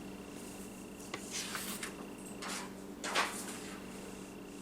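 A few faint, soft rustles over a steady low hum.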